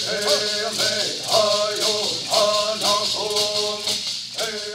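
Group of men singing a traditional Native American song in unison to the fast, steady shaking of hand-held rattles. The song fades down near the end.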